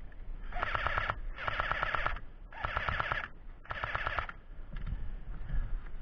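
Airsoft electric gun firing four short full-auto bursts, each a rapid rattle of about fifteen shots a second, with brief pauses between them.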